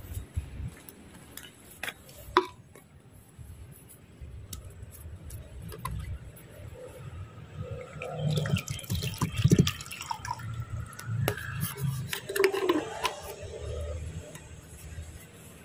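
Water poured from a plastic bottle into a clear plastic tub, splashing and filling for several seconds in the middle. A few sharp clicks and knocks of plastic being handled come before it.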